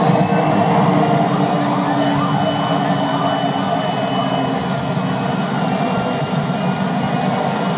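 Steady loud roar from a robot's flamethrower jetting fire, with the rumble and thin whine of other running machines underneath.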